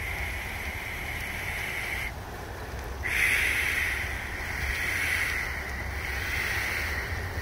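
Sleet and rain falling, a steady hiss that cuts out briefly about two seconds in and comes back louder a second later, then swells and eases a few times.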